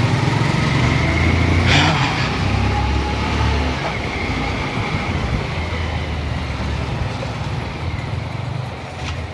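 Motorcycle (Bajaj Pulsar) engine running while being ridden along the road, under a steady low rumble of wind on the microphone. There is a brief sharp noise about two seconds in.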